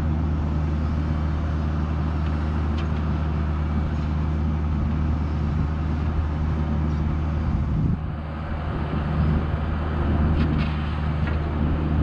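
Bobcat E26 mini excavator's diesel engine throttled up and running steadily as it digs, with a brief drop in level about eight seconds in.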